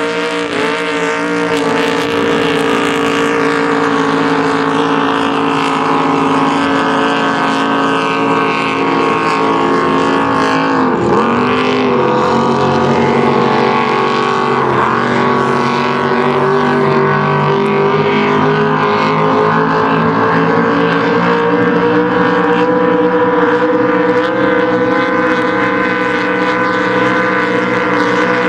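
Race boat engines running hard at speed, a steady loud drone with brief dips in pitch about eleven and fifteen seconds in.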